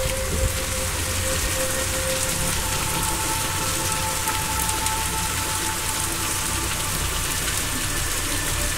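Steady rain-like hiss with a few soft, long held tones drifting over it; the tones change pitch a few seconds in and again near the end. It is an ambient relaxation soundscape.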